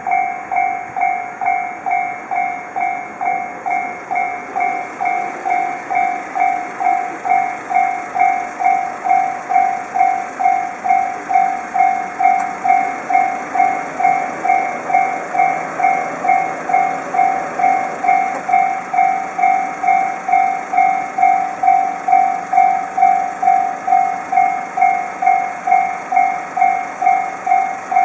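Japanese level crossing's electronic warning bell ringing steadily, about two strikes a second. Partway through, a train passes, adding a rushing rumble under the bell.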